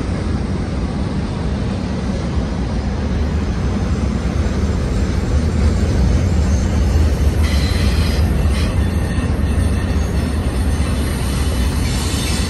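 Double-stack intermodal freight train's well cars rolling past on a curve, a steady rumble of steel wheels on rail. About seven seconds in, a higher squeal from the wheels joins the rumble.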